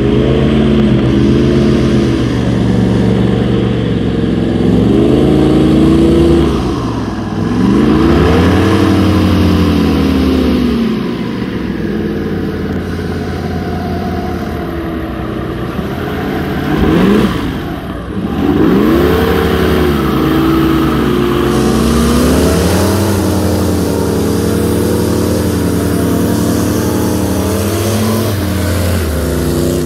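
Airboat's 383 big-block Chevy V8 and propeller running loud, the revs swelling and falling several times as the throttle is worked, with a quick dip and surge a little past the middle.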